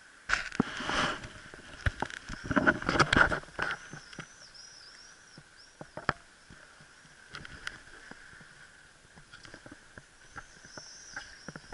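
Footsteps on loose boulders, with stones knocking and clattering underfoot in scattered sharp clicks. There are two louder rushes of noise in the first few seconds. A short run of high chirps comes in the middle and again near the end.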